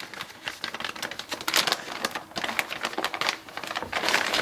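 Plastic zip-top bag crinkling and rustling as it is handled and opened, with a dense run of small crackles and clicks.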